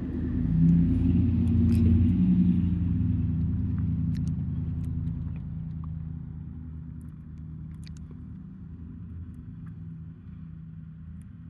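Low rumble of a car engine, loudest in the first few seconds and then fading away as the vehicle moves off. A few faint clicks are scattered through it.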